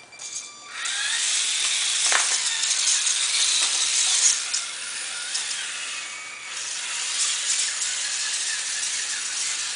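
The tiny electric motor and gears of a 1/32-scale mini 4WD RC truck whirring as it drives, a high, hissy whine that starts about a second in. There is a sharp click about two seconds in, and the whine dips briefly past the middle.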